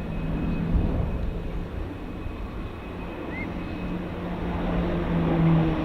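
Airbus A400M Atlas's four TP400 turboprop engines in flight, a steady propeller drone whose pitch begins to fall near the end as the aircraft passes.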